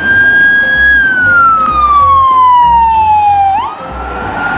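Ambulance siren wailing: one loud tone that holds, slides slowly down, then jumps back up near the end. Background music with a steady beat plays underneath.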